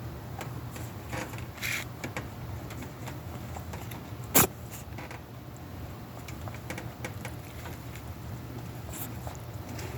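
A rabbit sneezing: one short, sharp sneeze about four and a half seconds in, after a softer puff near the start. Faint small clicks and scuffles run underneath.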